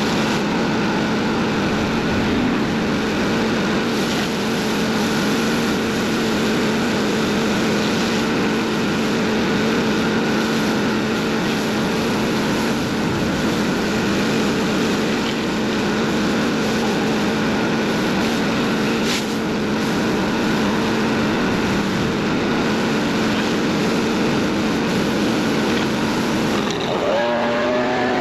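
Small gasoline engine running steadily with a hiss. Near the end its pitch climbs.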